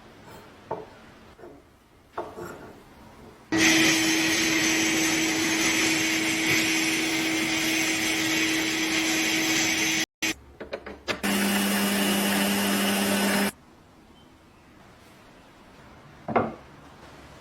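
Small electric power tool running at a steady speed on the rusty lock for about six seconds. After a brief break it runs again for about two seconds with a lower hum. Light handling knocks come before and after, with a sharper knock near the end.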